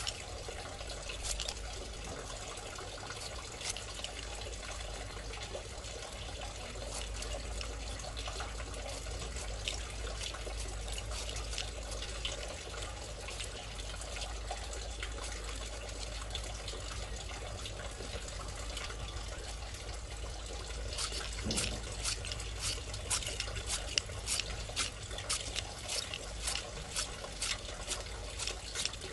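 A knife scraping and shaving the ridges off an angled luffa gourd: a run of quick scraping strokes, densest in the last several seconds, over a steady hiss.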